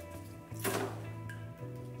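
Background music, with one short metallic clank or scrape a little over half a second in as the timing-chain cover is pulled free of the engine block.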